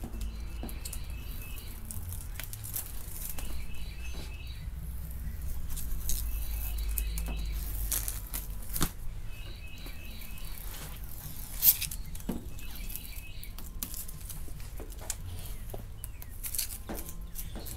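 Clear plastic transfer tape being peeled off a vinyl pinstripe on car paint: faint rustling, crinkling and ticks over a low steady hum. A short run of high chirps repeats about every three seconds.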